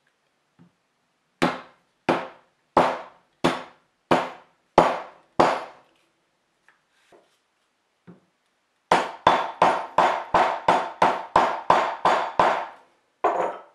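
Mallet striking a steel rivet doming tool to round over the cut end of a copper rivet on an anvil: seven evenly spaced blows, then after a pause a quick run of about a dozen blows, three to four a second, with the tool turned between strikes, and one last blow near the end.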